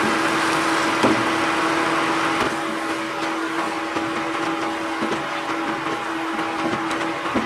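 A steady fan-like hum with a fixed tone over a hiss that eases about two and a half seconds in, as marinated chicken is stirred into tomato masala in a pan with a wooden spoon. A few light knocks of the spoon against the pan.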